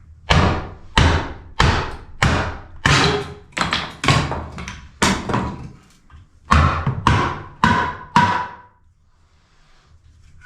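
About a dozen hard blows on a wooden board nailed to a wall, knocking it loose. They come roughly every half second with a short break midway, and the last few ring a little.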